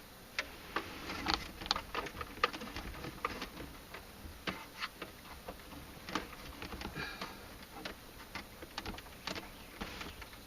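Scattered, irregular light clicks and taps of wires and small plastic parts being handled while wiring an equaliser in a car.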